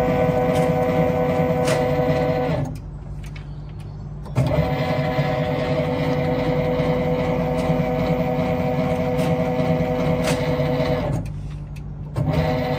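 On-load tap changer motor drive unit running as it steps a power transformer's tap changer down position by position: a steady motor hum that stops about two and a half seconds in, starts again with a sudden clunk about four seconds in, stops again near eleven seconds, and restarts just before the end.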